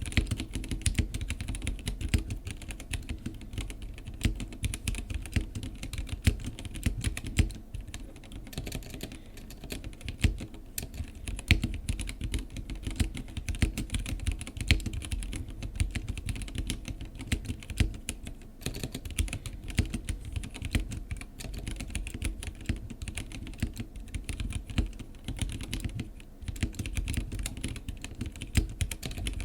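Continuous fast typing on a Womier K87 acrylic mechanical keyboard with unlubed Gateron Red linear switches and stock keycaps, a dense, irregular run of key clacks with a few brief pauses.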